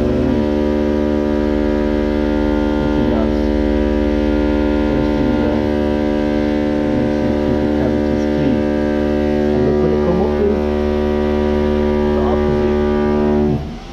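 A loud steady hum made of several evenly spaced tones. It settles in pitch as it starts and cuts off suddenly near the end.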